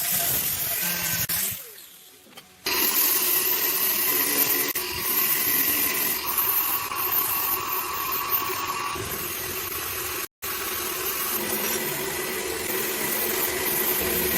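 A power tool running steadily with a loud, even hiss. It dips out about two seconds in and cuts off for an instant about ten seconds in, as between edited clips.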